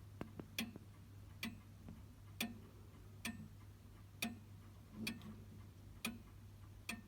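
Grandfather clock ticking steadily from its pendulum escapement, about one tick a second.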